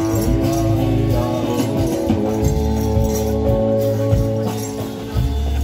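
A live band playing, with guitars and a jingling, tambourine-like percussion.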